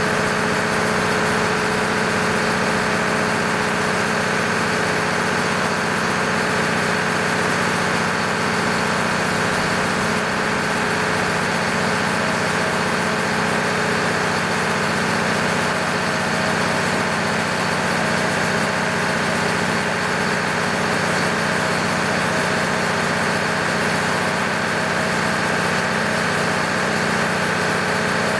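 Freshly overhauled MEP-006A 60 kW military diesel generator set, its six-cylinder engine running at a steady, unchanging speed with a constant hum.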